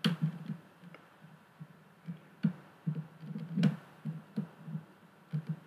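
Small precision screwdriver prying at a calculator's thin metal bezel plate and plastic housing: irregular soft knocks from handling, with a few sharp clicks, one at the start, one about two and a half seconds in and a few more near the middle.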